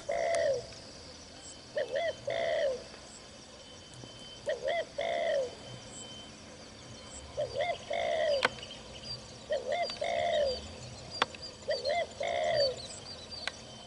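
Spotted dove cooing: a phrase of a short hooked note and then a longer falling note, repeated six times about every two and a half seconds. A smaller bird chirps faintly in the background near the end.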